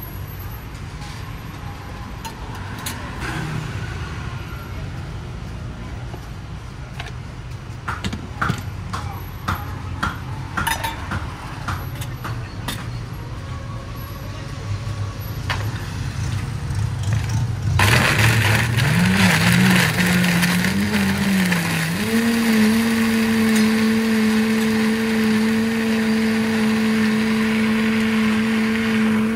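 Light taps and clinks of a scoop and plastic cups, then about two-thirds of the way in a countertop blender switches on, loud and sudden. It blends a fruit smoothie, its motor pitch wavering for a few seconds before settling into a steady whine.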